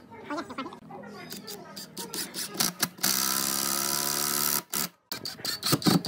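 Cordless drill driving a screw into a log. The motor runs steadily for about a second and a half, then stops, with tool-handling clicks and knocks before and after.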